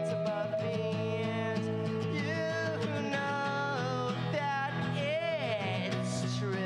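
A man singing live while playing a guitar, with a long, wavering held note about five seconds in.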